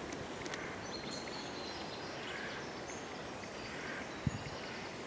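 Small songbirds calling in a woodland, several short high chirps scattered over a steady background hiss. A single low thump about four seconds in.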